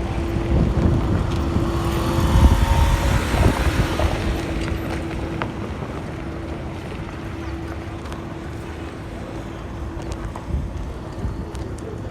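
Road traffic with wind buffeting the microphone: a vehicle goes by loudest about two to three seconds in, then it settles to a quieter rumble, with a steady hum underneath.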